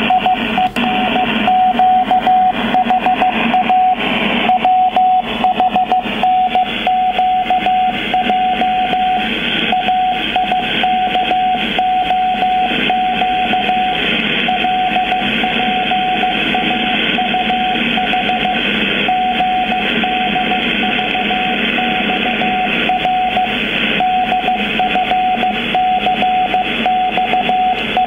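Morse code from the French Navy shortwave station FAV22 on 6825 kHz, heard through a software-defined radio receiver. A single mid-pitched beep is keyed rapidly in dots and dashes, with short pauses between groups, over a steady hiss of shortwave static.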